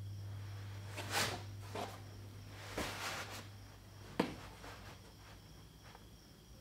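A few short rustles and scrapes and one sharp tap just after four seconds in, from a person moving and handling things, over a steady low hum.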